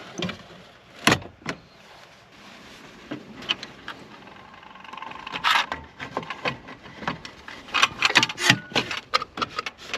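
Clicks and knocks of parts being handled and fitted inside a car: two sharp clicks about a second in, then a quick run of knocks and clicks near the end.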